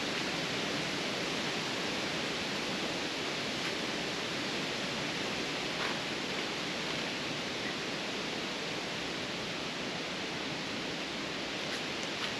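Steady, even hiss with a couple of faint clicks; no single source stands out.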